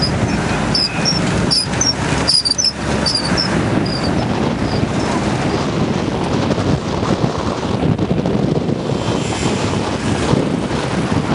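Loud, steady rumbling noise of wind on the microphone, with a few short high chirps in the first few seconds.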